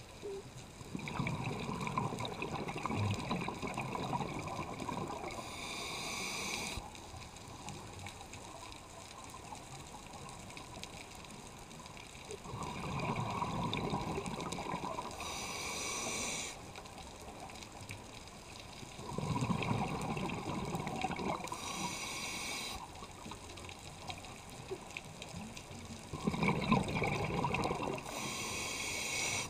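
Scuba diver breathing through a regulator underwater. A low rush of exhaled bubbles is followed each time by the high hiss of an inhalation through the regulator, four breaths about seven seconds apart.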